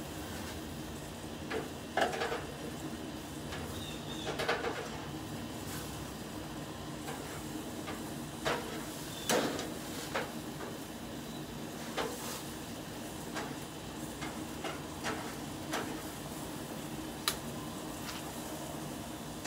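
Scattered light clicks and scrapes of a metal spatula on a gas grill's grate, about a dozen short knocks spread through, over a steady low hum.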